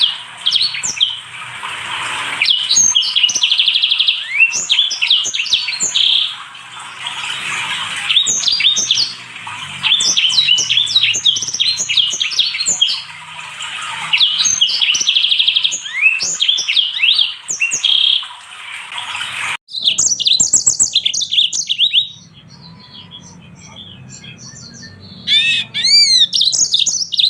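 Small finches singing long, fast twittering songs of chirps and trills, the song of one bird over another. About two-thirds through the song cuts off sharply, giving way to sparser chirps and, near the end, a few clear rising-and-falling whistles.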